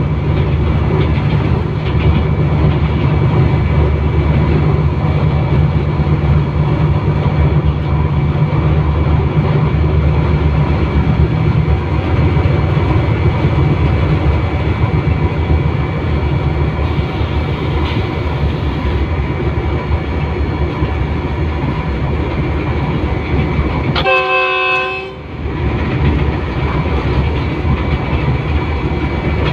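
Diesel locomotive running as it rolls along the track, with wheels clacking over the rails; the low engine drone is heavier in the first half. Near the end a short horn note sounds for about a second.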